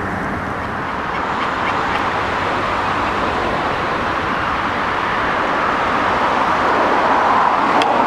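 Steady hum of city road traffic, swelling a little toward the end, with a couple of faint clicks near the end.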